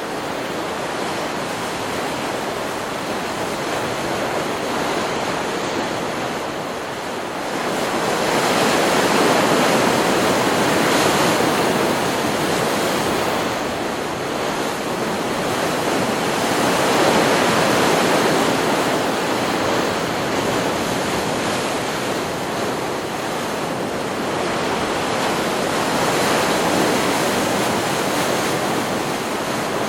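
Stock recording of ocean surf: a continuous wash of breaking waves that swells louder three times as waves come in, then eases back.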